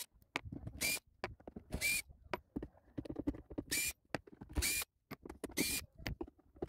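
Cordless drill with a Torx T15 bit backing out the housing screws on a Kärcher K5 pressure washer, in five short whirs about a second apart. Light clicks and knocks from the screws and tool handling come between the whirs.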